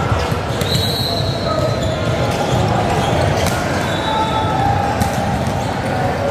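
Indoor volleyball rally on a hardwood gym floor: a few sharp ball hits spaced over several seconds and short high squeaks, over the murmur of players' and spectators' voices in a large gym.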